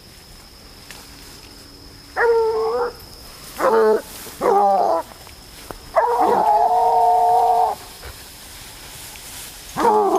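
Boar-hunting hound baying: five drawn-out bays, the fourth held for nearly two seconds, with a short one near the end.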